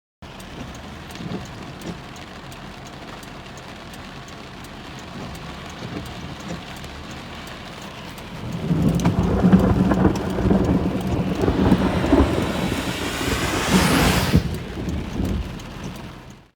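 Heavy rain falling, with many sharp drop ticks, then a long roll of thunder: it starts about eight seconds in, builds to a deep rumble and fades away near the end.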